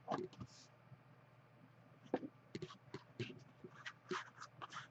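Faint crinkling, scraping and tapping of trading-card packaging and cards being handled and opened, a scatter of short sharp sounds with quiet gaps between.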